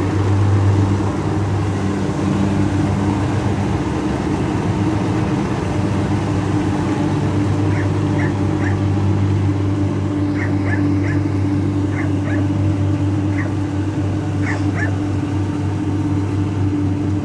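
Kubota DC60 combine harvester running steadily as it cuts rice, its diesel engine and threshing drum making a constant drone. In the second half, short high yips come in small groups of two or three.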